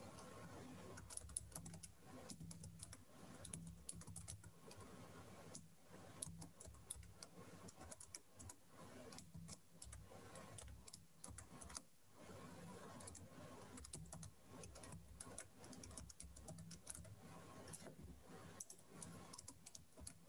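Faint computer keyboard typing: irregular runs of key clicks with short pauses between them.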